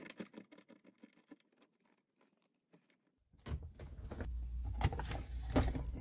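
Light clicks and knocks of hands working plastic centre-console trim and a screw, faint at first and then briefly silent. In the second half they are louder and more scattered, over a steady low hum.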